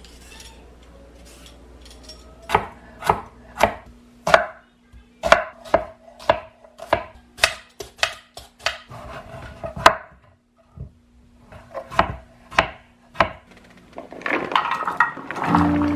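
Knife chopping on a cutting board, a run of sharp knocks about two a second with a short pause partway. Background music comes in near the end.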